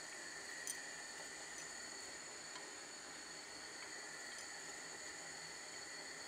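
Faint steady hiss of sugar syrup at a rolling boil in a steel pot on a gas stove, with a soft click about two-thirds of a second in.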